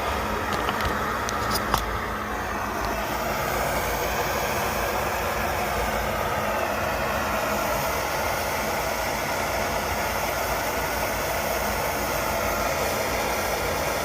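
Coleman 530 G.I. pocket stove's liquid-fuel burner running with a steady rushing hiss, the stove freshly restored and working. A few light clicks come in the first two seconds.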